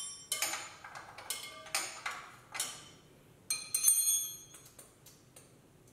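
A string of sharp metallic clinks and taps, each ringing briefly, as tools and metal parts knock against the engine's turbo and manifold hardware. About eight strikes come in the first four seconds, the loudest near four seconds in, then they die away.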